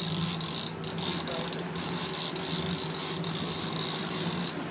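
Large conventional fishing reel cranked steadily, its gears clicking rapidly while a hooked fish is reeled in. A steady low hum from the boat's engine runs underneath.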